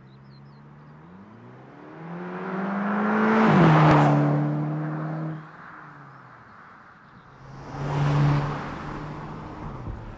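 VW Golf GTI Mk6's turbocharged 2.0-litre four-cylinder accelerating hard, its pitch climbing and then dropping sharply with an upshift about four seconds in. A second, shorter swell of engine and exhaust comes around eight seconds in as the car drives up the road, the sound echoing off the rock walls.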